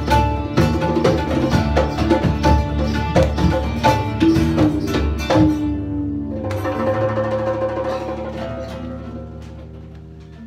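Live band of drums, upright bass and keyboard playing a rhythmic, percussion-driven passage. About six seconds in, the beat stops on a held chord that rings on and fades away.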